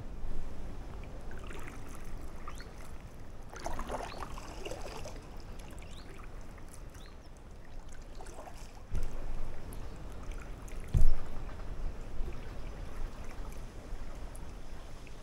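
Inflatable kayak being paddled: the paddle dips, and water splashes and drips around the boat over a steady low rumble. A single sharp knock about eleven seconds in is the loudest sound.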